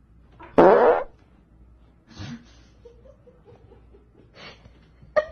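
A loud fart: one short buzzy rasp, about half a second long, starting about half a second in.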